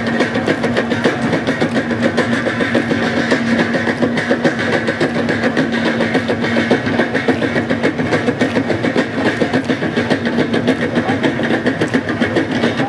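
Traditional drum and gong ensemble playing a fast, even beat to accompany a group dance, with a steady low tone running underneath.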